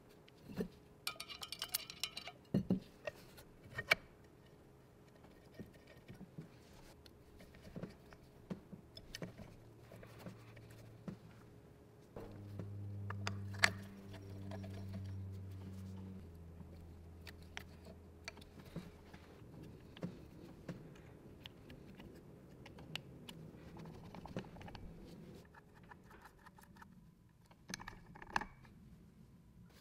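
Scattered light clicks and taps of small parts being handled, with a low steady hum for a few seconds in the middle.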